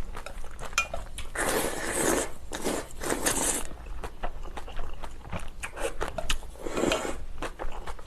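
Close-up eating of instant ramen noodles with kimchi: three noisy slurps, two in the first half and one near the end, between chewing and light clicks of utensils against the bowl.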